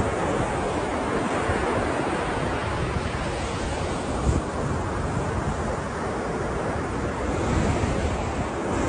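Ocean surf washing steadily onto a shore, a continuous rush of breaking waves with wind buffeting the microphone in brief low gusts, one of them about four seconds in.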